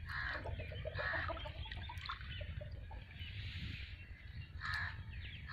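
Domestic fowl calling in short bursts, four times, over a steady low rumble of wind on the microphone.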